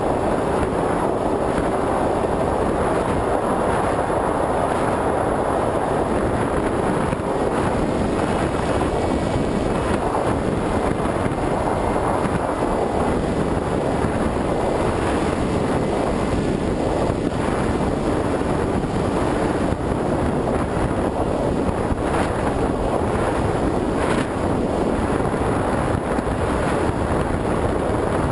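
Steady rush of wind over the microphone of a GoPro HD Hero riding on an FPV Raptor model plane in flight, mixed with the plane's motor and propeller running.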